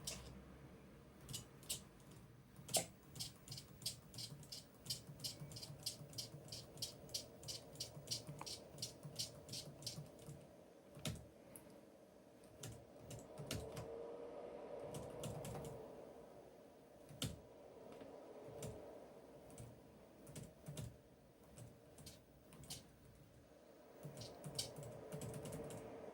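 Computer keyboard keystrokes entering commands, a quick run of about three clicks a second for the first ten seconds, then scattered keys. A faint whine rises and falls twice, around the middle and near the end, as the arm's MG90S hobby servos move.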